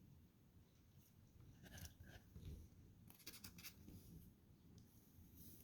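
Near silence with faint, scattered small clicks and rustles from about a second and a half in to about four seconds in: a trading card and its plastic holder being handled.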